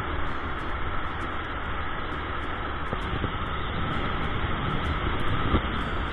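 Wind rushing over a camera mounted on the outside of a moving van, over the steady rumble of the van on the road.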